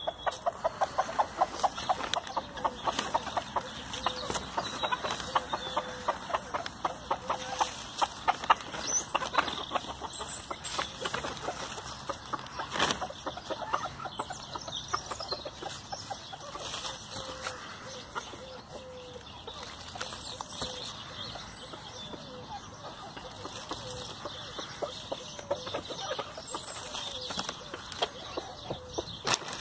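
Bantam chickens clucking softly while they peck and tear at a pile of freshly pulled grass, with a fast run of short pecking clicks that is busiest in the first half.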